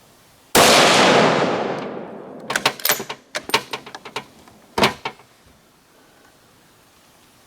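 A single .308 Winchester rifle shot from a Ruger Precision Rifle, with a long fading echo. About two seconds later the bolt is worked in a quick run of metallic clicks and clacks to eject the case and chamber the next round.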